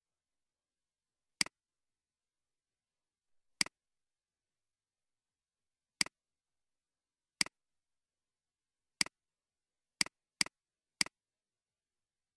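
Computer mouse clicking eight times at uneven intervals, each a sharp click followed at once by a softer release click; the last three come in quicker succession.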